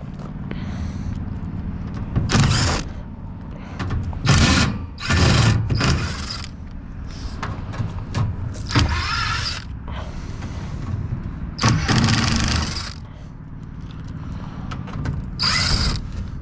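Cordless driver backing 5/16 hex screws out of the rooftop AC unit's sheet-metal panels in about seven short bursts, over a steady low hum.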